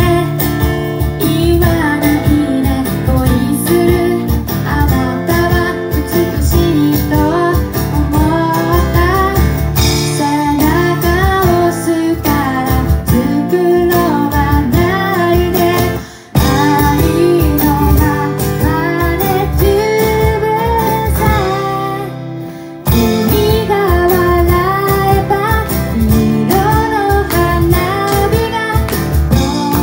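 Live pop song: a woman singing to her own acoustic guitar strumming, with keyboard accompaniment. The music breaks off briefly about halfway through and again about three-quarters through.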